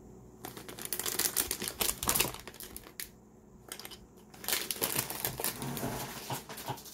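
Plastic LEGO Minifigures blind bags crinkling as they are handled, in two bouts of rapid crackling with a quieter pause of about a second and a half between.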